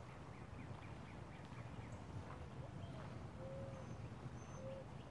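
Birds calling: a few short, steady whistled notes from about two and a half seconds in, and two brief high chirps near the end, over a low rumble of wind on the microphone.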